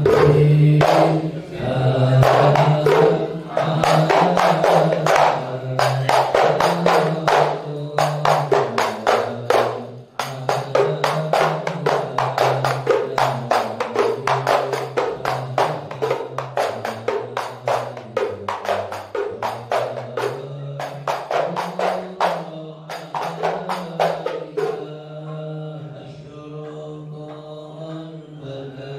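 Sholawat sung by a group of men, led by one voice on a microphone, over a fast, steady beat of hand percussion. Near the end the percussion drops away and the chanting continues more quietly.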